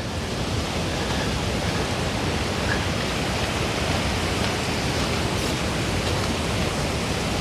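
Steady rush of strong wind blowing over the microphone, swelling a little in the first second and then holding level.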